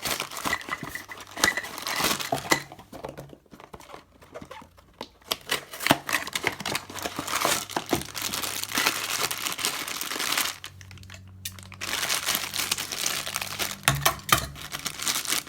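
Cardboard mystery-mini blind boxes being torn open from the bottom and their packaging crumpled, in a long run of irregular crackles and rustles with a brief lull near the end.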